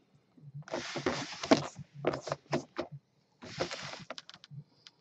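Hands handling and turning a clear plastic display cube holding a mini football helmet: three stretches of rubbing and scraping, each with a few sharp clicks.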